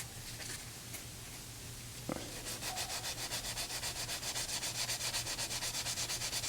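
Hand sanding of curb rash on an aluminium wheel rim with fine 320-grit abrasive: quick, even back-and-forth rubbing strokes, about five a second, starting a couple of seconds in after a small knock.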